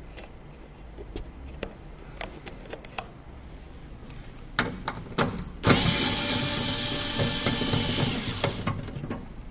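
Light clicks and taps of parts being handled, then a small electric motor whirring steadily for about three seconds before it stops.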